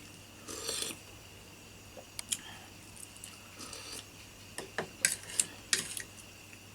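Scattered light clicks and taps of tableware during a meal, with a short rustle about half a second in and a quick run of clicks near the end.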